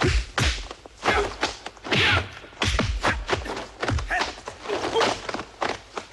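Rapid run of film punch and kick impact sound effects, dull thuds and thwacks coming two to four a second, mixed with a few short fighters' grunts.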